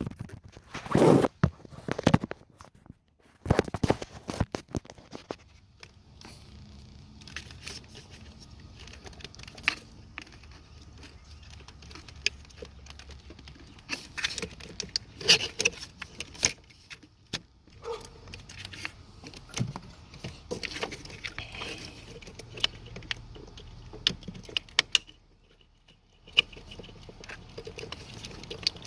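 Hand tools and metal engine parts clinking, rattling and knocking as components are worked loose in a car's engine bay. There are irregular sharp clicks, with louder knocks near the start and around the middle, over a faint steady low hum.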